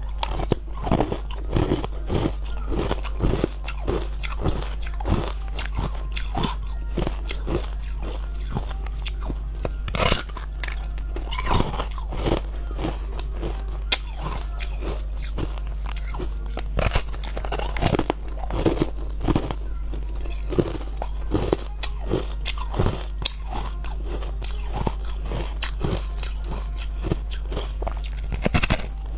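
Crunching bites into a block of hard frozen coloured ice, then chewing the ice pieces, heard close up; the crunches come irregularly, several a second at times, over a steady low hum.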